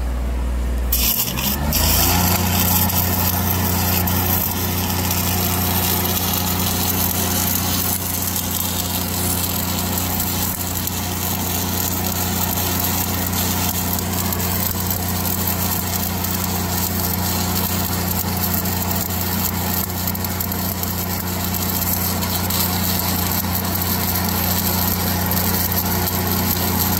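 Stick welding with a 1/8-inch ESAB 7018 electrode at about 124 amps: the arc strikes about a second in and then burns with a steady crackling hiss. Under it hums the Lincoln 305D engine-driven welder, which picks up speed from idle as the arc strikes.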